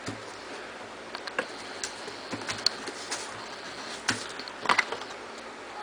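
A few light, sharp clicks and taps, irregularly spaced, over a steady faint hiss, with a close pair of louder taps near the end.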